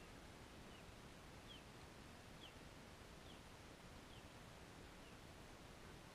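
A small bird calling faintly: a short, high, falling note repeated about once a second, six times, over a quiet outdoor hush.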